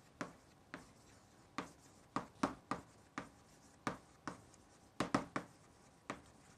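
Chalk writing on a chalkboard: a string of short, irregular taps and scratches as letters are chalked out.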